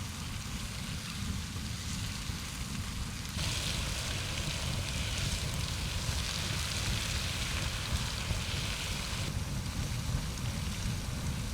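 Wind noise buffeting the microphone, with a steady hiss that grows louder for several seconds in the middle.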